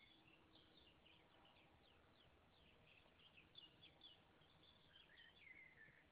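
Faint songbird chirping: quick high notes throughout, with a falling trill near the end, over a low background hiss.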